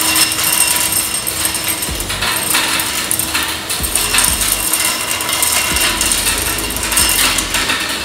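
Wieland VacPro 16 industrial vacuum running steadily on its three electric blowers while it sucks gravel through its aluminium wand. Stones clatter and rattle irregularly up the metal tube.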